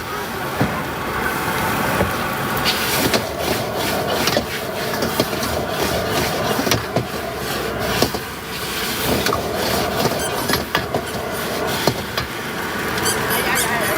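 Metal spatula repeatedly scraping and clattering on a hot cooking surface while stir-frying, over a steady background noise.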